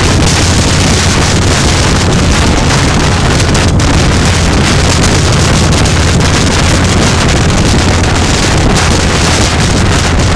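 Heavy wind noise on the microphone of a vehicle travelling at road speed, over a steady low engine drone.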